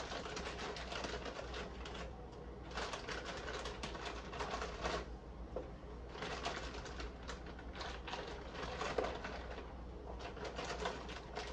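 A pot of water at a rolling boil on the stove, bubbling and popping in uneven surges, over a steady low hum.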